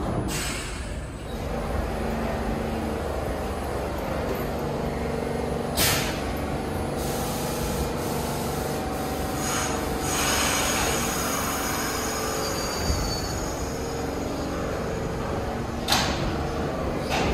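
New York City subway train running, with its motors humming in tones that shift in pitch now and then and a rush of air hiss. Two sharp clicks come about six seconds in and near the end.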